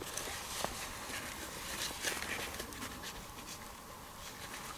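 Soft rustling of a Helinox Sunset camp chair's fabric seat, with light clicks and scrapes from its pole frame as the seat's pockets are slid onto the pole ends.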